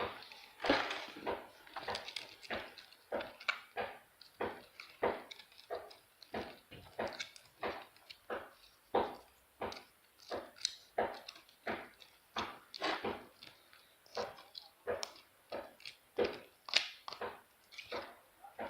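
Sticky glue slime being stirred in a small bowl, with repeated short stirring strokes at about two a second. The slime is partly activated with contact lens solution and is still sticking to the bowl.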